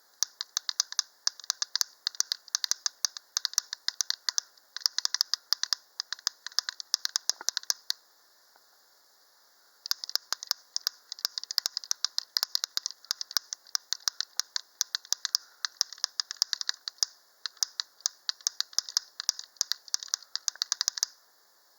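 Homemade wire-pulled woodpecker figure pecking: its metal beak strikes a piece of metal inside the stump in quick taps, several a second, meant to sound like a woodpecker. The tapping stops for about two seconds partway through, then carries on until shortly before the end.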